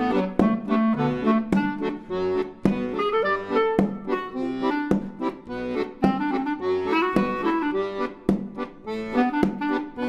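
Instrumental outro music with a steady beat under a changing melody.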